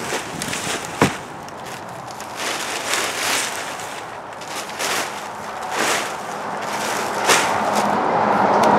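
Irregular crackling rustles and scrapes as the compost pile is opened up, with one sharp crack about a second in. A steady rushing background grows louder near the end.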